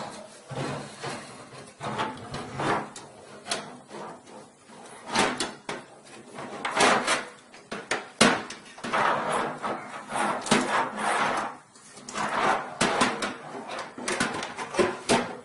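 An ATX power supply being slid and pushed into a steel desktop computer case: repeated scraping and clunking of metal on metal as it is worked into place.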